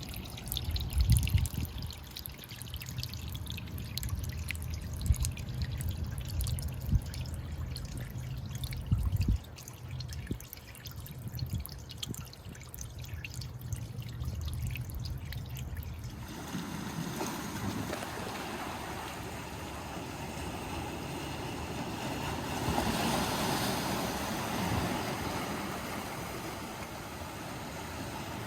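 Seawater trickling and lapping among shoreline rocks, with fine crackling drips. About halfway through, the sound changes abruptly to the steady wash of waves breaking on the shore, which swells once near the end.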